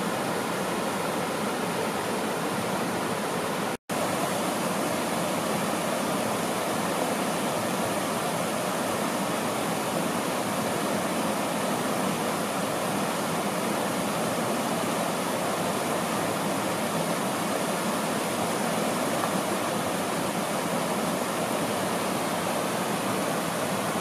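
Shallow mountain river rushing over rocks and small rapids in a steady rush of water. The sound drops out for an instant about four seconds in.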